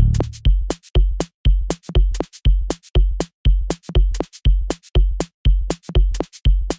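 Electronic background music: a drum-machine beat with a kick drum about twice a second and sharp hi-hat ticks between. A bass line fades out right at the start, leaving the bare beat.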